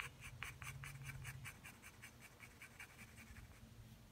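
Graphite pencil in a metal extender shading on drawing paper: faint, quick back-and-forth strokes, about six a second, laying in tone.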